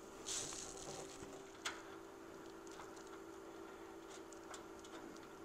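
Quiet handling sounds as a metal seat pan is set in place and its screws are started by hand: a brief rustle, one sharp click about a second and a half in, and a few faint ticks near the end.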